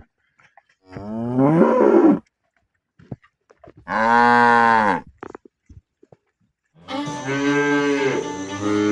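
Cows mooing: three separate calls, the first rising in pitch, the second held steady, the third starting near the end and running on.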